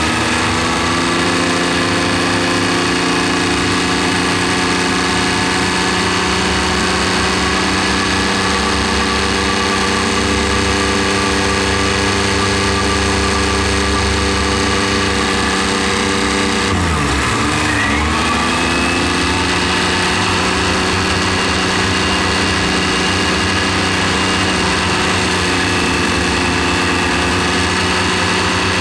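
John Deere tractor's diesel engine running steadily while driving along the road. Just past halfway its note drops sharply and then climbs back up.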